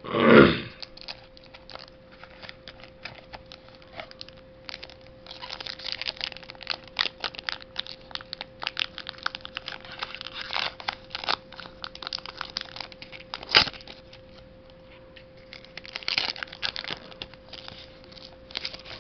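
Foil booster-pack wrapper crinkling and tearing open, and trading cards being handled, in crackly spells about five to eleven seconds in and again near the end, with one sharp click in between. A brief loud sound comes at the very start, and a faint steady hum runs underneath.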